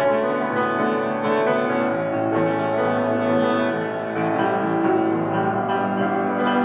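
Solo piano music with held, overlapping chords.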